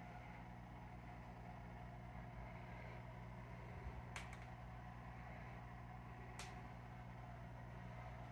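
Faint steady low hum with a light hiss, from an aquarium's running pump and filtration, broken by two sharp clicks about four and six seconds in.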